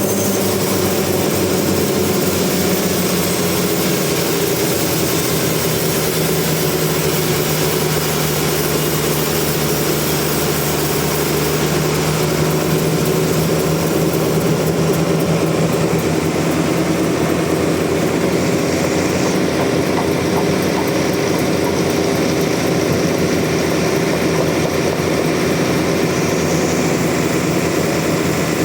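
Sawmill machinery running steadily: an engine's even drone with a hiss over it.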